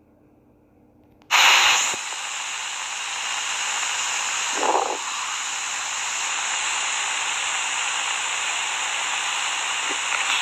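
A loud, steady hiss that starts suddenly about a second in and runs on evenly, with a short, lower rush about four and a half seconds in.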